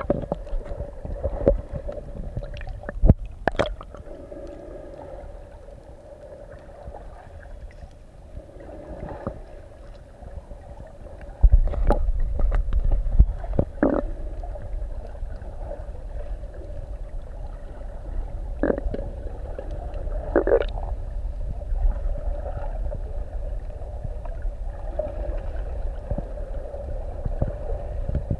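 Underwater sound picked up by a submerged camera: a muffled low rumble of water moving around the camera, with a faint steady hum and scattered clicks and gurgles. The rumble grows louder about eleven seconds in.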